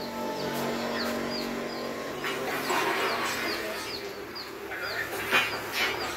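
A bird chirping over and over, short high falling chirps a few times a second, over steady workshop background noise. A couple of louder, noisier bumps come through in the second half.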